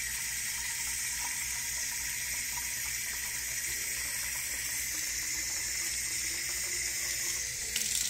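Water from a sink tap running steadily into the clear plastic water tank of a Philco PAS19B robot vacuum-mop, filling it.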